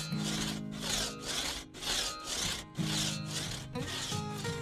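Large-toothed hand crosscut saw cutting through a log, with back-and-forth strokes about two a second, over background music. The saw strokes die away near the end.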